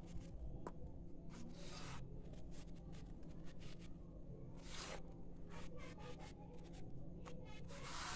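Dry sifted sand-cement powder in a glass bowl, crunched and trickled through the fingers: faint, grainy scratching and crackling. Three longer hissing swishes come as the hands rake through it, about a second and a half in, near the middle, and at the end.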